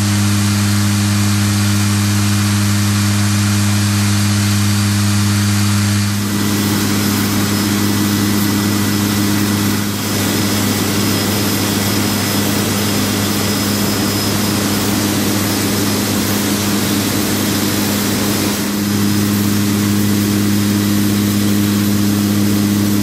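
Cabin drone of a C-27J Spartan in cruise: its Rolls-Royce AE 2100 turboprops and six-bladed propellers give a steady deep hum over a hiss of airflow. About six seconds in the hum turns rougher and wavering, and it settles back to a steady hum near the end.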